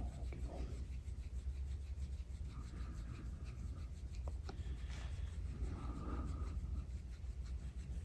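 A gua sha tool scraping over the skin of the neck and upper back in slow, repeated strokes, a soft rubbing rasp. A steady low hum runs underneath.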